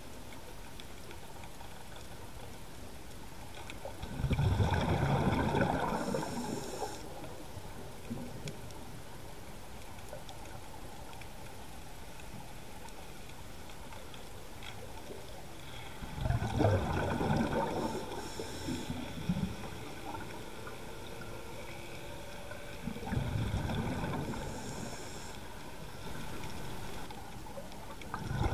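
Scuba diver's exhaled breath bubbling out of the regulator underwater, in four bursts of gurgling bubbles a few seconds apart, over a steady hiss.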